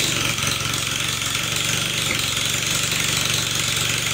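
Tecumseh HS40 single-cylinder mini bike engine running fast and steady just after its first start, with a rough, rattling exhaust note through a spark-arrestor muffler. The throttle hangs open and the engine runs away, which they put down to a missing throttle return spring.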